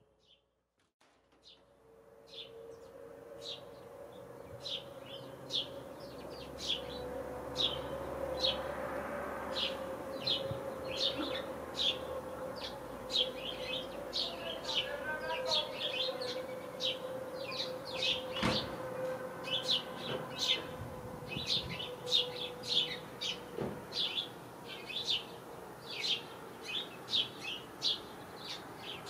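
A flock of house sparrows chirping, a dense run of short, repeated chirps from many birds at once. A steady hum runs underneath and fades out about three-quarters of the way through. The sound fades up from near silence in the first couple of seconds.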